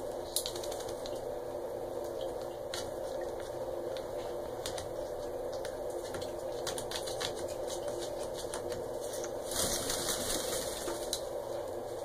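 Water running in a tiled shower stall, a steady rush with scattered drips and clicks, and a brighter burst of spray-like hiss about ten seconds in.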